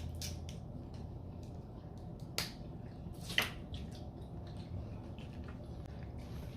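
Eating sounds close to the microphone: a few sharp cracks and wet clicks from chewing and handling food, the loudest about two and a half and three and a half seconds in.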